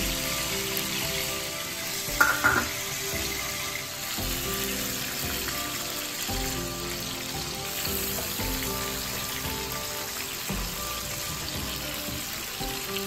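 Grouper fish head pieces sizzling as they pan-fry in oil, with a brief knock about two seconds in.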